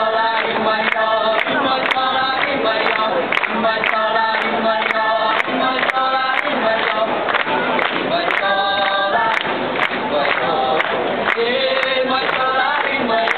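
A mixed group of men and women singing together, a Taiwanese indigenous folk song performed live, with long held notes and regular sharp beats under the voices.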